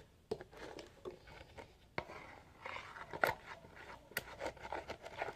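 Homemade glue slime being mixed and pulled by hand while still sticky, giving irregular small clicks and crackles as it peels off and sticks back.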